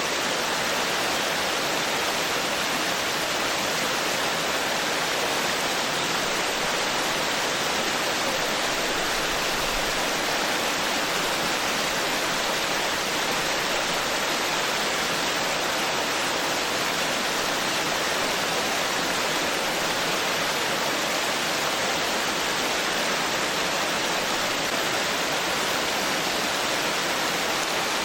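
Forest stream babbling, water running steadily over rocks.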